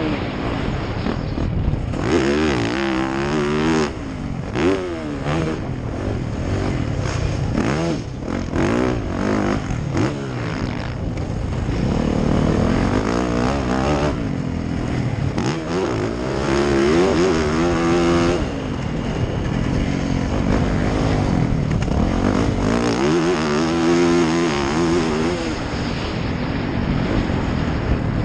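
Dirt bike engine heard on board, revving up and dropping back again and again as the rider accelerates and backs off around the track.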